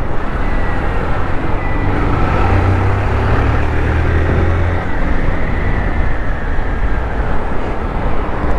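Motorcycle ridden in traffic: the engine runs with a low steady hum under constant wind and road noise, and the hum fades about five seconds in.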